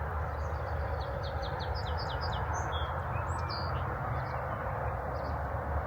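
A songbird singing a quick series of short falling notes, about four or five a second, in the first three seconds or so, then a few fainter notes, over a steady low rumble.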